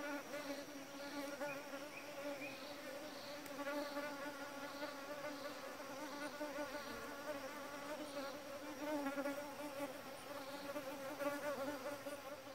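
A flying insect buzzing steadily close by, its wingbeat hum wavering slightly in pitch. Faint short high chirps recur about once a second behind it.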